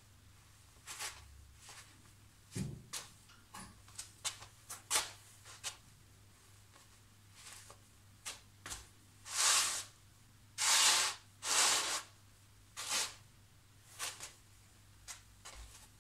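Soft-soled fleece slipper boots scuffing and shuffling on ceramic floor tiles: a run of short scrapes and taps, with three longer, louder slides a little past the middle.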